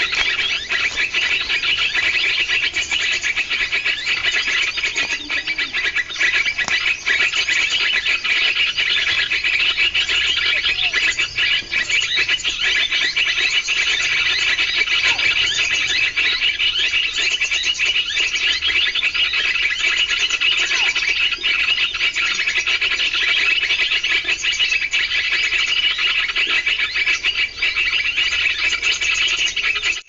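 A bird-lure recording played through a small speaker: a loud, dense, continuous chorus of high chirping calls.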